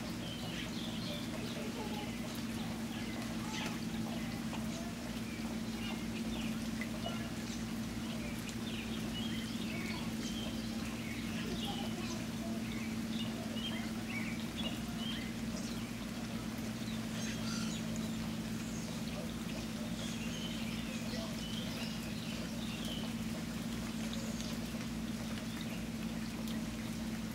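Steady rainfall, water pattering and trickling without let-up, over a constant low hum.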